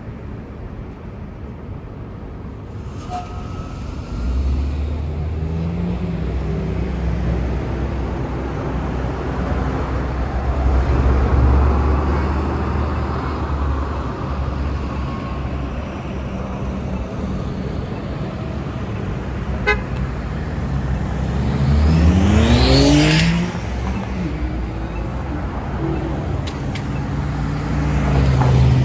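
Road traffic: vehicle engines running with a steady low rumble, and one engine rising sharply in pitch as it accelerates about 22 seconds in.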